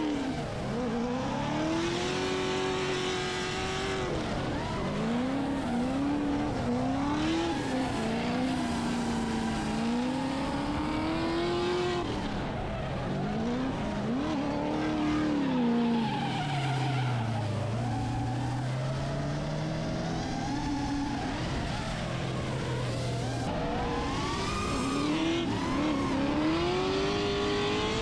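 Drift car engine revving hard, its pitch swinging up and down again and again as the car slides through the corners, over tyre squeal and screech. Past the middle the engine settles to a lower, steadier note for a few seconds before climbing again.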